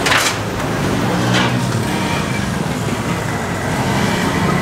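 Roadside traffic: a motor vehicle's engine running steadily close by, with a short hiss right at the start and a fainter one about a second and a half in.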